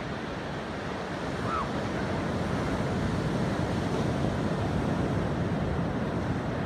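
Ocean surf breaking on a sandy beach: a steady rush of waves that swells louder about two seconds in.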